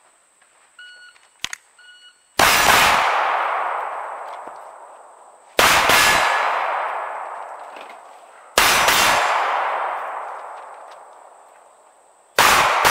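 Two short electronic beeps from a shot timer, then a pistol firing four quick strings of shots about three seconds apart. Each string is followed by a long fading echo. The four strings are the four shooting positions of a box drill.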